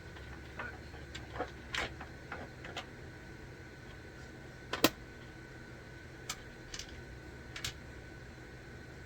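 Irregular light clicks and taps, about a dozen, with one sharp louder knock about five seconds in, over a faint steady high-pitched whine.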